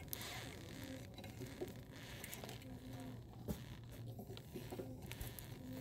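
Faint scraping and a few scattered clicks of a car jack being cranked up under a car's frame.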